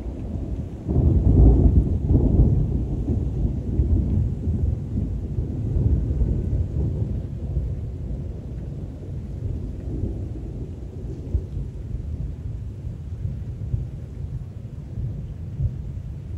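A long roll of thunder, loudest about a second or two in, then slowly dying away in uneven rumbles, over steady rain.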